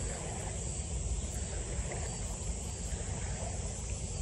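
Wind buffeting the microphone: a steady, fluctuating low rumble under an even outdoor hiss.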